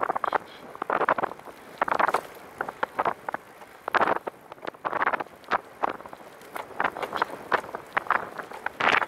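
Wind buffeting the microphone in irregular gusts while riding a Catrike 700 recumbent trike along a paved trail, mixed with short clicks and rattles from the ride.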